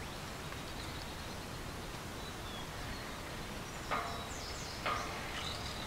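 Steady outdoor background noise, with two short squeaky sounds about four and five seconds in.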